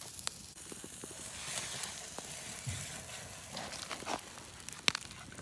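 Steady sizzling and crackling from a wood campfire under a canteen cup of ramen that has just boiled over, with scattered pops and a sharp click near the end.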